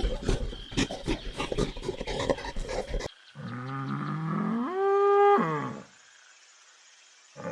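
A rapid, irregular run of clicks and knocks, then a cow mooing once: one long call that rises in pitch and holds before breaking off.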